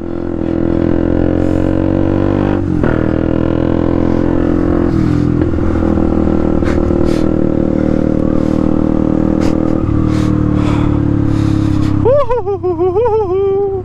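The single-cylinder four-stroke engine of a KTM 125 Duke, running with its exhaust dB killer removed, pulling at a steady pitch under way, with short breaks in the engine note about three and ten seconds in.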